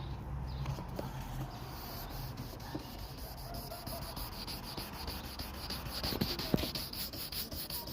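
2000-grit sandpaper rubbed by hand over a plastic tail light lens in quick back-and-forth strokes, a steady scratching that becomes more regular in the second half.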